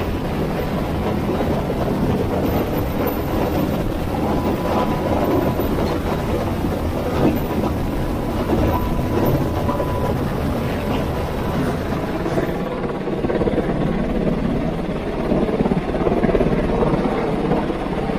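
UH-60 Black Hawk helicopter hovering close overhead, then pulling away with an underslung load. Loud, steady rotor and engine noise with rotor downwash buffeting the microphone.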